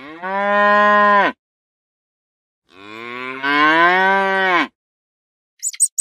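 Cattle mooing: two long calls, the second rising in pitch before it breaks off.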